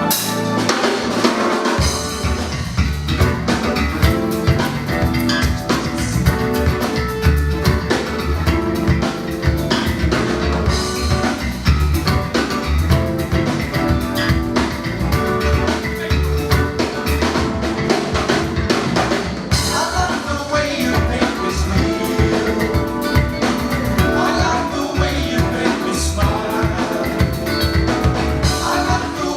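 Live jazz-funk band playing, led by a drum kit with held pitched parts above it. The heavy low end comes in about two seconds in.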